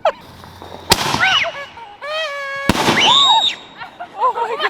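Two loud firework bangs about two seconds apart, each followed by voices crying out in high shrieks.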